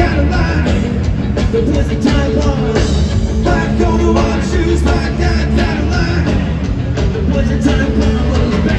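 Punk rock band playing live through a stadium PA: electric guitar, bass and drums with a singer's voice, heard from far back in the stands.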